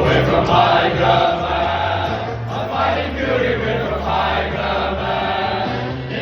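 A group of men chanting a team victory song together over backing music with a steady bass beat.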